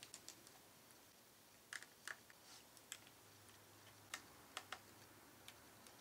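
Faint, irregular light clicks and ticks of a small screwdriver working out the screws of a laptop's CPU heat-sink bracket.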